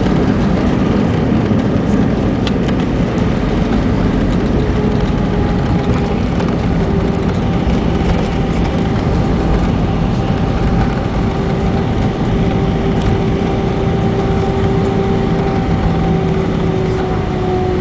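Steady cabin noise inside an Airbus A320 taxiing after landing: the jet engines at low power and the air-conditioning. From about five seconds in, a steady engine whine sits over the noise and drifts slightly lower in pitch toward the end.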